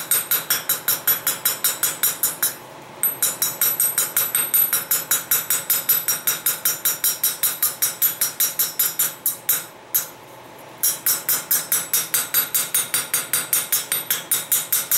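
Rapid light taps of a ball peen hammer reground into a texturing tool, striking a thin sheet-metal tree cutout lying on an anvil face to texture it. The blows come about five or six a second with a bright metallic ring, and the tapping breaks off briefly about three seconds in and again around ten seconds.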